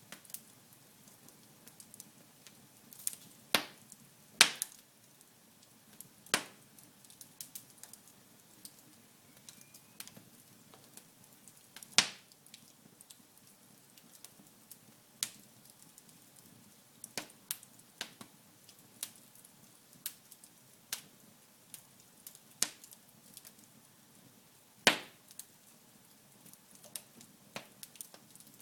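Wood fire burning in a fireplace: a faint steady rustle of flames with irregular sharp crackles and pops from the burning logs, a few of them much louder than the rest.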